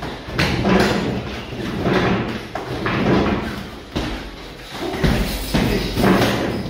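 Boxing gloves landing on gloves, headgear and a padded chest protector during sparring: a run of irregular, dull thumps, some in quick pairs.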